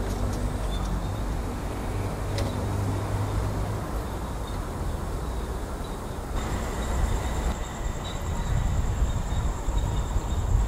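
Steady low rumble of distant road and rail traffic around an urban railway station, with a thin high whine joining about six seconds in.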